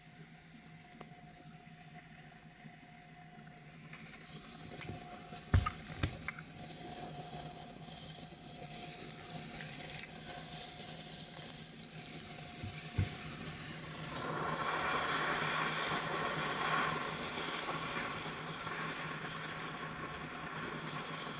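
Hot air rework gun blowing a steady hiss onto a laptop motherboard, heating a surface-mount chip to desolder it; the hiss starts about two-thirds of the way in. Before it, a faint steady hum and a few sharp clicks from tools being handled.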